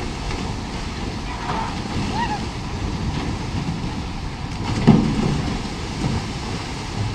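Wind buffeting the microphone over churning river water, with a loud splash about five seconds in as cattle drop from the boat's side into the river.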